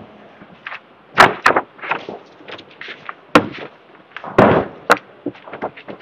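Several sharp knocks and thumps of chairs and wooden furniture being moved as people get up, the loudest about a second in and again past four seconds.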